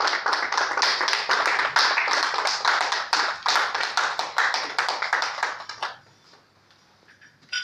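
A small group applauding by hand. The clapping lasts about six seconds, then dies away, and a single click follows near the end.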